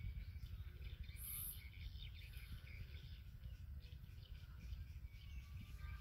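Faint outdoor ambience: a steady low rumble with scattered thin high chirps, and a short very high buzz about a second in.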